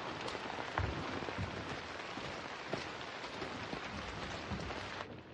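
Steady rain falling, an even hiss with scattered drop ticks, that cuts off suddenly about five seconds in.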